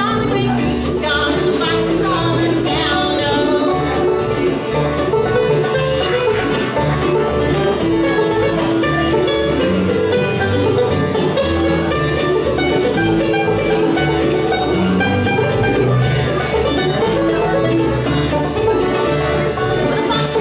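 Bluegrass band playing live: rapid banjo picking and mandolin over acoustic guitar strumming and upright bass notes.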